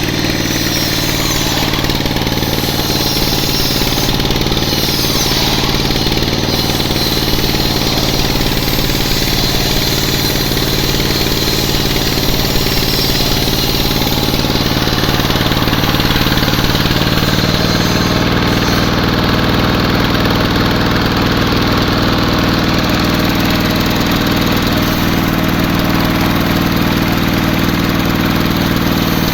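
Engine of a log sawmill running steadily at a constant loud level, its note changing about halfway through.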